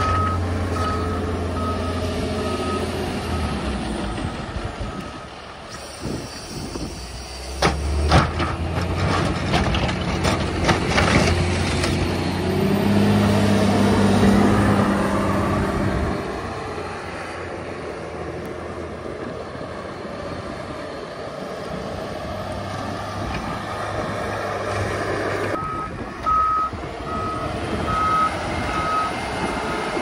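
Snow-plow vehicle working in reverse: its backup alarm beeps about twice a second for the first few seconds and again near the end, over a steadily running engine. In the middle come a few seconds of sharp knocks and clatter, then the engine pulls harder for a few seconds.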